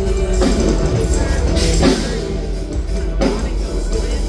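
Rock band playing live, with drum kit and guitar over a heavy bass.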